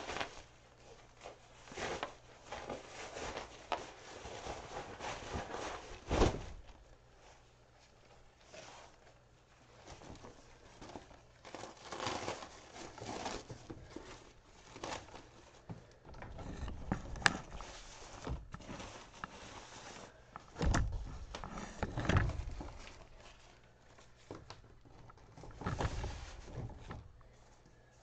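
Plastic-backed disposable floor pads (puppy training pads) rustling and crinkling as they are picked up, shaken out and laid down, in irregular bursts with a few dull thumps.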